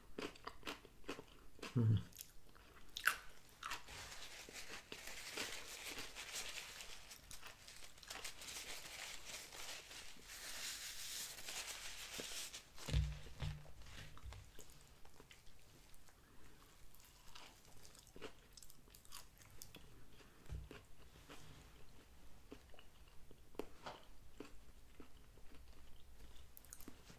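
A person chewing and crunching a crispy fried chicken sandwich close to the microphone, with wet mouth clicks. There are two dull knocks, about halfway through and again about three quarters of the way in.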